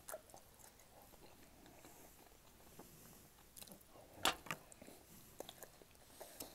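Faint close-up chewing, with soft wet mouth clicks and one sharper click about four seconds in.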